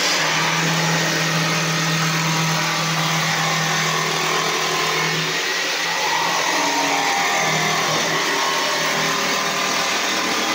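Electric jigsaw cutting through a wooden board: a steady motor drone under the dense rasp of the reciprocating blade, its pitch wavering a little about halfway through.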